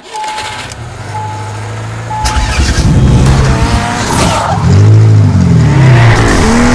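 Car engine sound effect: idling with three short beeps about a second apart, then revved up and down several times, ending on a rising rev.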